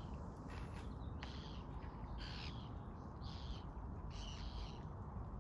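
A bird calling repeatedly, short calls about once a second, some falling in pitch, over a steady low background rumble.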